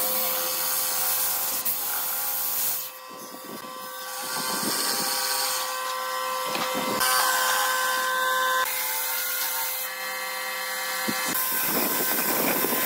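Handheld electric jigsaw cutting through a wooden board: the motor runs with a steady whine while the blade rasps through the wood. The sound changes abruptly several times.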